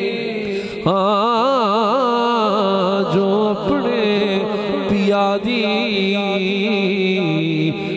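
Punjabi naat sung by a male lead voice without words. From about a second in he holds a long note with a wide, wavering vibrato, then sings shorter ornamented notes, all over a steady drone that carries on underneath.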